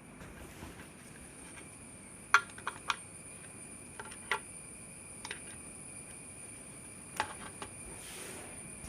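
Small hard parts of a laptop and tools being handled: a scatter of sharp clicks and taps, the loudest about two and a half seconds in, over a steady faint high-pitched electrical whine.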